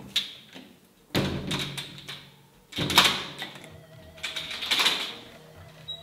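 Toilet stall door banging and rattling in four loud, sudden bouts, each dying away with some echo off the tiles, over quiet background music.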